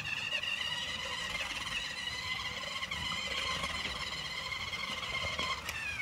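Small battery-powered RC car's electric motor and gear train whining as it drives. The high whine settles to a steady pitch and starts to drop near the end as the car slows.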